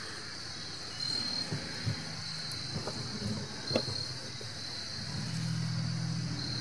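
Outdoor ambience: a steady high-pitched insect drone, with a low engine hum of a vehicle coming in about five seconds in and a few soft handling knocks.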